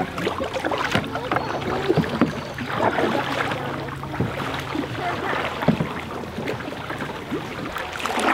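Canoe paddles dipping and splashing, with water lapping and dripping in irregular splashes as a canoe is paddled along a shallow creek.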